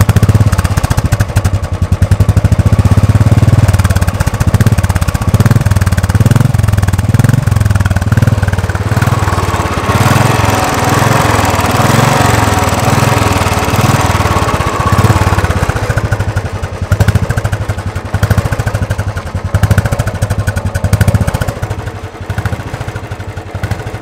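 Royal Enfield Standard 350's carbureted, air-cooled single-cylinder engine idling with its steady exhaust thump, not yet warmed up. The low beat swells and eases in a slow rhythm, and from about ten seconds in more mechanical engine clatter comes through.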